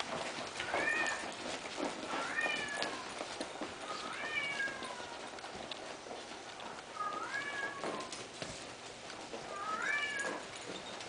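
An animal calling over and over: five high calls, each about half a second long, rising then falling in pitch, roughly two seconds apart.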